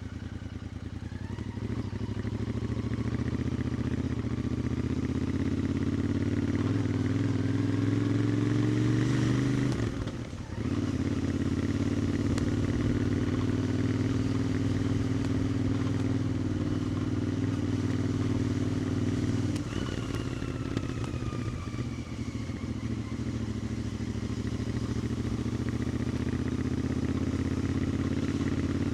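2021 Royal Enfield Interceptor 650's parallel-twin engine and exhaust under way, rising in pitch as the bike accelerates, then dropping off sharply for a moment about a third of the way in and briefly again about two-thirds in before settling into a steady cruise.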